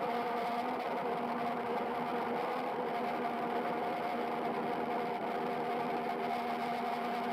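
Waverunner Mark III bait boat's electric propeller motors running with a steady whir and several constant hum tones, picked up by the underwater camera mounted on the boat.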